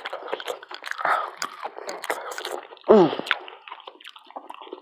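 Close-up wet chewing and smacking mouth sounds of someone eating, with many small clicks and squelches. About three seconds in there is a short hum of a voice falling in pitch.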